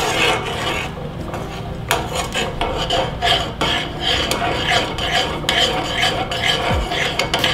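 A metal spoon stirring thickening farina porridge in a saucepan, with repeated irregular scraping and clinking of the spoon against the pot.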